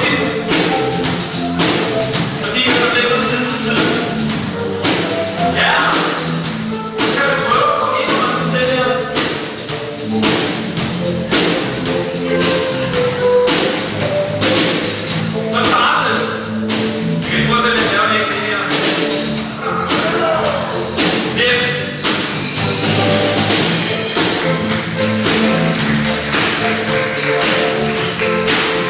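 Live band playing a song: a drum kit keeping a steady beat under electric guitar and keyboard, with stretches of singing.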